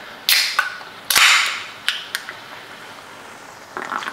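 Aluminium can of Coca-Cola Zero being opened by its ring-pull: a sharp crack, then a louder crack about a second in, each followed by a short fizzing hiss of escaping carbonation, and a couple of faint clicks after.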